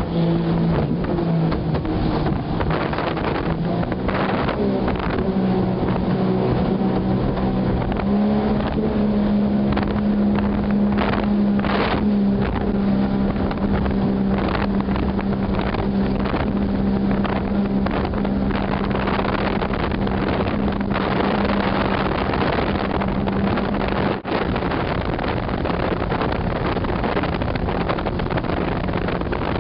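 Motorboat engine running steadily at speed, its note rising slightly about four seconds in and then holding, over wind on the microphone and rushing water from the hull and wake. There is a brief drop-out in the sound about 24 seconds in.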